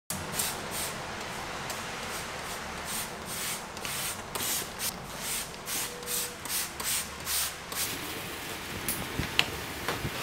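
Trigger spray bottle squirting water-repellent coating onto a stainless steel sink in quick repeated sprays, about two to three a second. From about eight seconds in, a dry cloth wipes the steel, with a sharp tap near the end.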